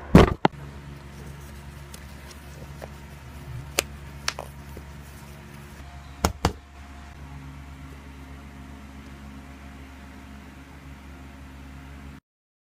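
Steady low hum of room noise, with a louder burst of handling noise at the start and a few sharp clicks and knocks as hands handle a paper-look sling bag. The sound cuts off abruptly shortly before the end.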